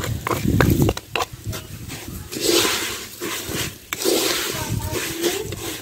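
Sugar poured from a clay bowl onto dry-fried vermicelli in an aluminium pan, then a wooden spatula stirring and scraping the dry vermicelli and sugar against the pan, with scattered clicks and hissy rustling.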